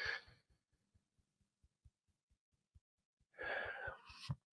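A man's long audible exhale, a sigh, about three and a half seconds in, with faint soft fingertip taps at about four a second underneath: EFT tapping on an acupressure point.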